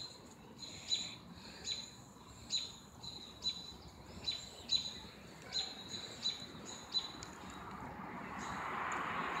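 A bird chirping: a short high call repeated about every half second, a dozen or so times, stopping about seven seconds in. A soft rustling hiss rises near the end.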